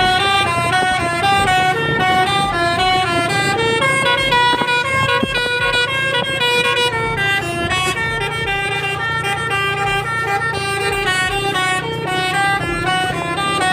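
Telolet Basuri musical horn on an NPM bus playing a tune of short stepped notes, several a second, over low road and engine noise.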